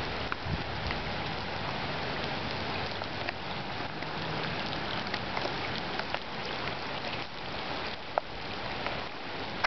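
Heavy rain falling steadily onto a flooded street and standing water: a dense, even hiss dotted with the clicks of single drops.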